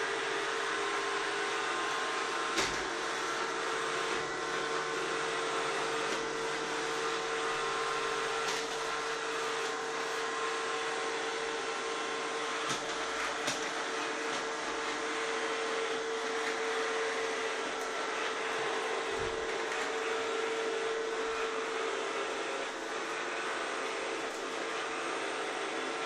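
Sencor SVC7020BK robot vacuum cleaner running on a laminate floor: a steady whirr of its suction motor and brushes with a constant hum, and a few brief knocks as it moves along the wall and furniture.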